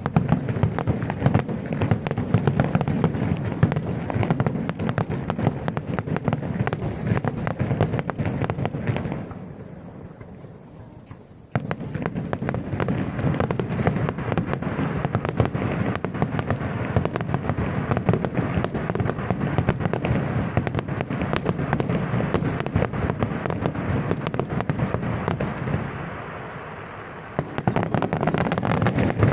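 Fireworks display: a rapid barrage of aerial shell bursts and crackles that fades away about nine seconds in, starts again abruptly with a loud bang about twelve seconds in, and pauses briefly before picking up once more near the end.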